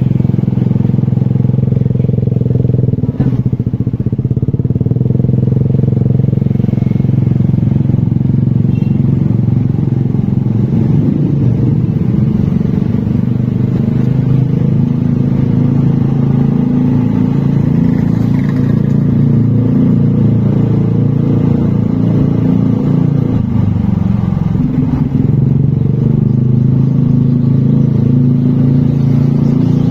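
Motorcycle engine running steadily while riding, a loud continuous rumble with small rises and falls in engine speed.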